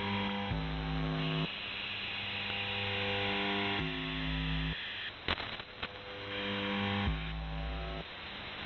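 Shortwave radio reception on the UVB-76 frequency, 4625 kHz: a strange transmission of steady buzzing tones that jump to a new pitch about every second, mixed with hiss, and a short burst of static crackle about five seconds in.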